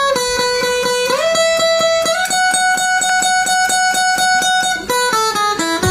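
Background music: quickly repeating plucked string notes under a held melody line that steps up and down in pitch, falling through a few quick notes near the end.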